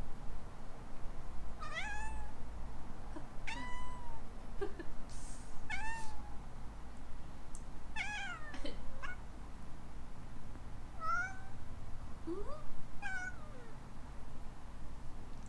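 Kitten meowing in a series of short calls, about one every two seconds, each sliding up and then down in pitch.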